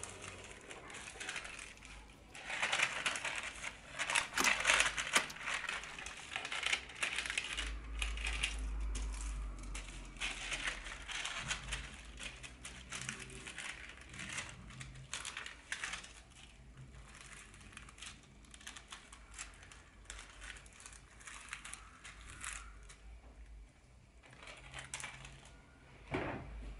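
Small objects being handled on a hard surface: irregular clinks, taps and rustling, busiest in the first third of the stretch.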